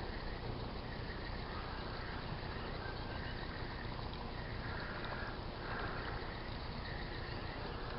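Steady outdoor background noise with animal calls in bouts of about a second, several times over.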